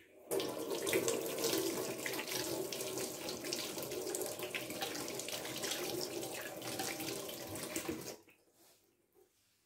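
Water tap running into a sink while hands are rinsed under it, a steady rush with splashing. It turns on right at the start and shuts off suddenly about eight seconds in.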